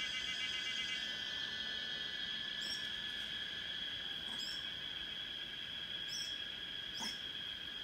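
Steady high-pitched insect chorus in forest, with a faster pulsing layer that drops out about a second in. Four short, high chirps sound over it, a second or two apart.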